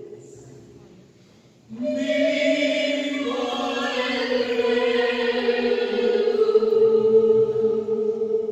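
Choir singing: one phrase dies away in the first moments, then about two seconds in the voices come in on a new chord and hold it steadily, with higher notes joining.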